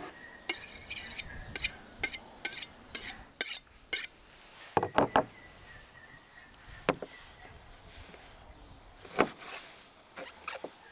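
A steel kitchen knife being honed, with about eight quick, bright scraping strokes of blade on metal over the first few seconds. Then come a few separate dull knocks on a wooden cutting board as a whole raw chicken and the knife are set down.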